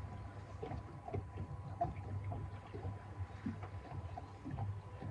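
Water lapping against a small boat's hull, with scattered light knocks and ticks over a low rumble.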